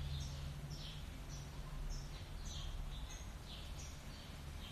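Birds chirping in the background: short, high, falling chirps repeating a few times each second, over a low steady hum.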